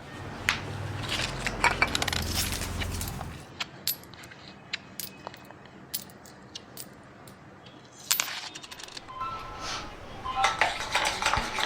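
Metal kitchen utensils and dishes clinking and clattering: a string of sharp, separate clinks, thickest near the start and again near the end.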